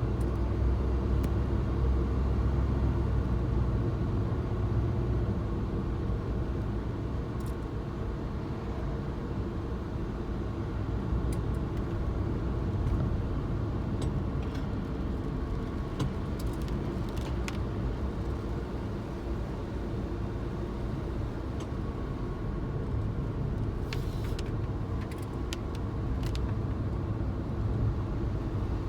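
Suzuki Jimny under way: a steady low engine and road rumble, a little heavier for the first few seconds, with scattered light clicks and ticks.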